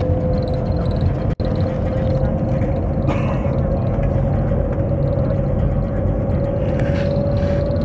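Cabin noise inside the Shanghai Maglev train as it accelerates: a steady rumble with a thin whine that rises slowly in pitch as the train speeds up. The sound cuts out for an instant about a second and a half in.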